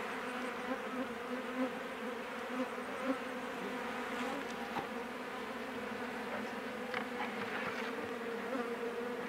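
Steady buzzing hum of many African honeybees around an opened hive, with a few faint soft ticks.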